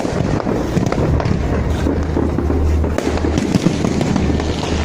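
Fireworks display bursting continuously, a dense run of crackles and pops with no pause, over a steady low rumble.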